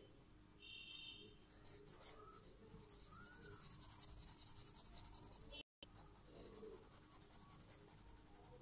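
Faint scratching of a felt-tip marker scrubbed rapidly back and forth on paper as it colours in an area. The strokes are densest through the middle, and the sound drops out for a split second about two-thirds of the way through.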